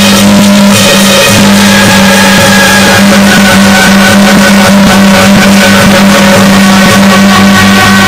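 Loud, heavily saturated Taiwanese beiguan ensemble music: several held tones over a steady low hum, with frequent percussion strokes.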